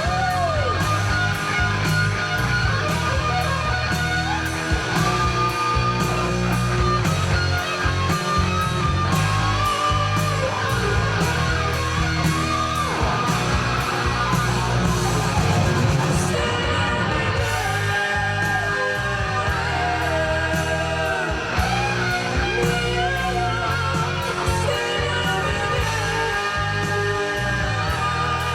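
Rock music with electric guitar, singing and a steady drum beat, played back through a 6C33C-B push-pull triode tube power amplifier.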